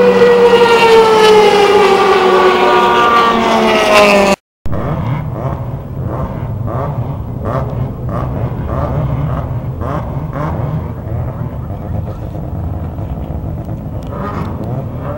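An open-wheel race car passes at speed, its engine note falling in pitch as it goes by. After a sudden cut about four seconds in, race-car engines idle with a low, steady hum.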